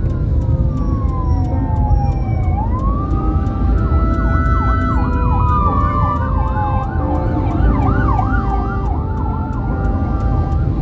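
Electronic siren wailing in a slow fall and rise, then switching about three seconds in to a fast yelp that rises and falls about twice a second. Steady road and engine rumble is heard from inside a car.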